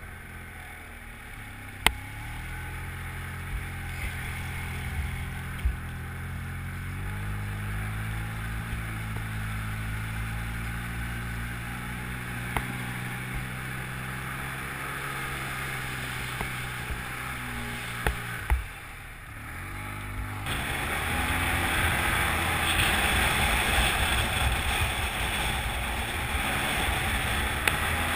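Polaris Sportsman ATV engine running under way, its note climbing slowly as it gathers speed, with a few sharp knocks. Near the end the engine note dips briefly, then a louder rushing noise takes over.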